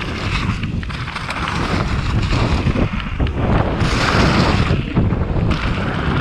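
Wind rushing over the camera microphone of a mountain bike riding fast down a dirt freeride trail, with tyre and ground rumble underneath. The rush turns louder and hissier for about a second, about four seconds in.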